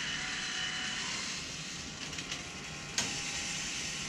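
GrindLux 4000 bandsaw blade sharpener's tooth advancer running on its own with the grinding wheel switched off, a steady mechanical whir with a sharp click about three seconds in.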